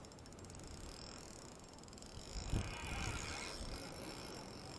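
Spinning reel being cranked against a fish on a bent rod: the reel's gears whir and click steadily. There is a thump about two and a half seconds in, followed by a louder noisy stretch of about a second.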